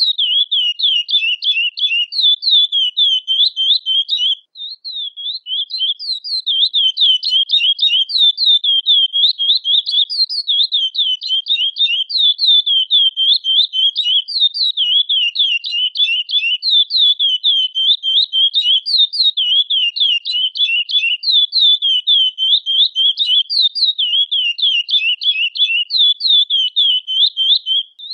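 Chestnut-bellied seed finch (curió) vocalizing: a long, unbroken run of short, quickly repeated chirping notes, several a second, each sliding up and down in pitch, with a brief pause about four and a half seconds in.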